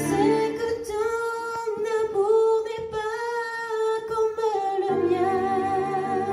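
A woman singing a slow hymn into a microphone, holding long notes. Steady low accompaniment chords drop out about a second in, leaving the voice almost alone, and return near the end.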